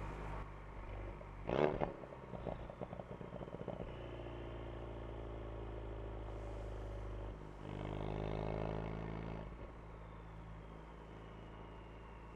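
Ford Focus RS exhaust on the move: a sharp crack about a second and a half in, then a run of short crackles and pops as the throttle lifts. Then steady cruising, with a brief burst of acceleration from about seven and a half to nine and a half seconds before the engine settles back.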